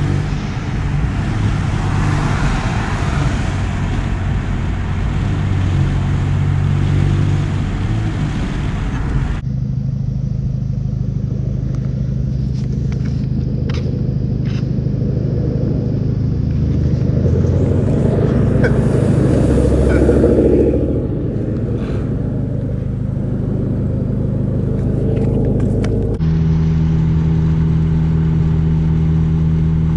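Straight-piped (catless, muffler-deleted, stock resonator) 2013 Hyundai Genesis Coupe 2.0T turbocharged four-cylinder. It runs first with its pitch rising and falling. About nine seconds in it settles to a steady warm idle that swells briefly. Near the end comes a steady drone at highway cruise.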